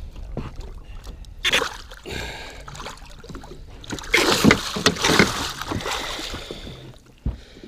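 A northern pike thrashing in a landing net at the boat's side, splashing water in several bursts, the longest and loudest starting about four seconds in.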